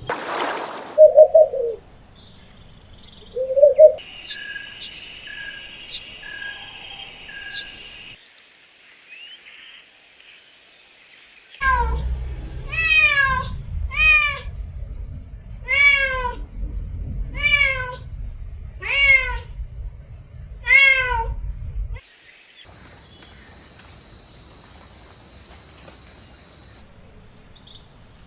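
A domestic cat meowing: a run of about eight arching meows roughly a second apart, after two short loud calls and a stretch of steady high tone.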